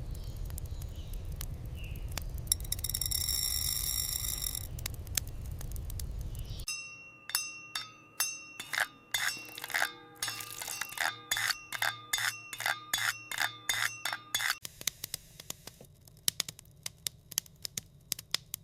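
A low rumbling hiss, then from about a third of the way in a run of light ringing clinks and taps, about two to three a second, like small glass or metal utensils knocking together. The clinks thin out to a few faint clicks near the end.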